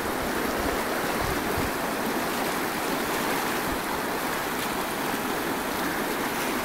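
River water rushing and churning over a shallow rocky rapid: a steady, even white-water rush.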